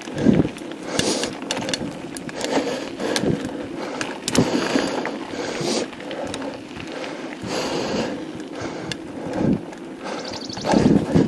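Mountain bike riding fast downhill on a rough dirt and gravel trail: tyres crunching over loose stones while the bike rattles and clicks over the bumps, with heavier thumps just after the start and again near the end.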